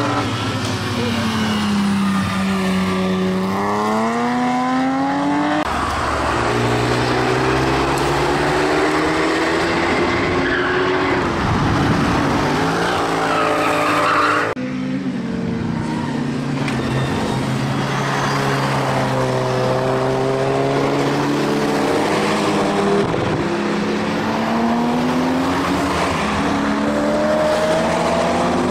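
Car and motorcycle engines passing at speed on a race track, each rising and then falling in pitch as it goes by, one after another. The sound breaks off and changes abruptly twice.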